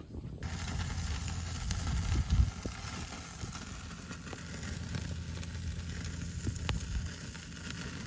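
Sausages, pork, eggplant and okra sizzling on a wire mesh grill over burning charcoal, with a few sharp crackles and pops and a low rumble underneath.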